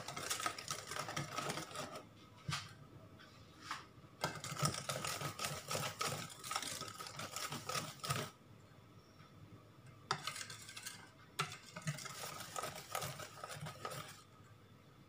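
Wire whisk beating pancake batter in a stainless steel mixing bowl, the wires clicking rapidly against the metal. It comes in three bouts with short pauses between them.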